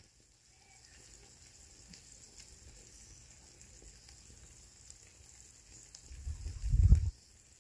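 Food sizzling faintly in a frying pan on a small camp stove. About six seconds in there is a loud low rumble lasting about a second.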